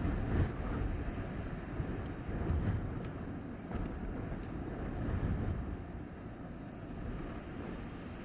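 Blizzard wind blowing in gusts: a low, rushing noise that swells several times and eases a little in the last couple of seconds.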